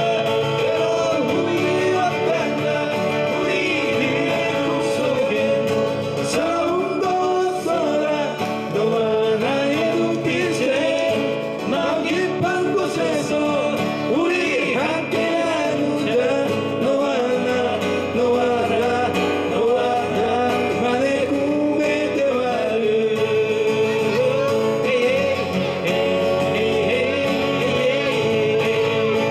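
Live acoustic performance: two acoustic guitars played while men sing the melody into microphones.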